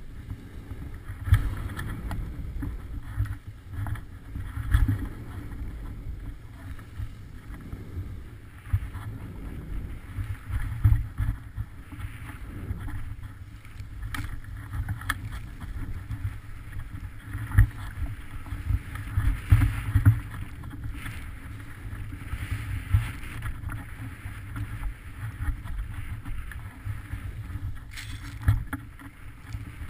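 Wind buffeting the camera microphone in an uneven low rumble, with skis sliding and scraping over snow in irregular turns on a steep descent.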